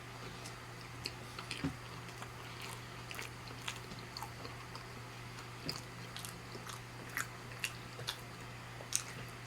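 Close-miked chewing of plant-based chicken, with irregular wet mouth clicks and smacks over a steady low hum.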